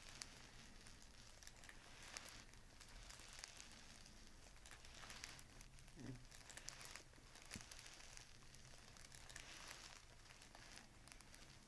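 Near silence, with faint scattered rustling, crinkling and light ticks of movement.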